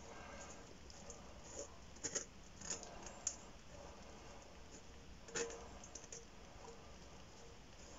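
Faint scraping with a few light clicks, the loudest about five seconds in, as wet tomato seed is scraped from a sieve back into a jar.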